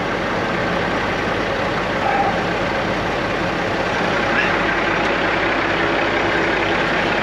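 Diesel engine idling, a steady low drone with no change in level.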